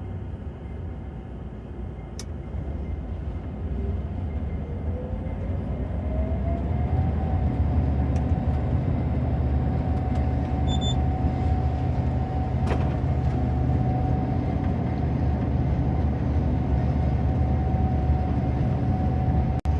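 Gleaner S98 combine running up to speed: a deep engine drone grows louder while a whine rises in pitch for about three seconds, then both hold steady.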